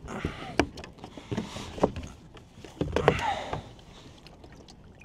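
Irregular knocks and clatters of gear being handled against a fishing kayak, several sharp hits over about three and a half seconds, then quieter.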